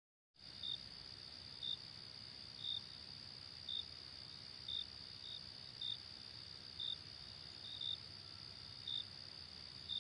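Crickets at night, faint: a steady high trill with a short, sharper chirp about once a second, starting about half a second in.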